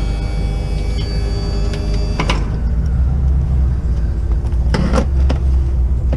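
Van engine running with a steady low rumble, with a few short clicks or knocks about two and five seconds in.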